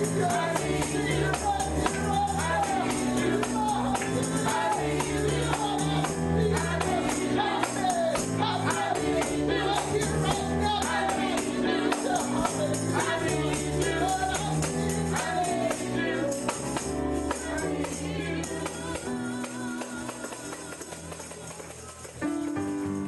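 Gospel music with singing, a shaken and struck tambourine, and bass notes under it. The music fades down over the last few seconds, then cuts abruptly to a keyboard playing just before the end.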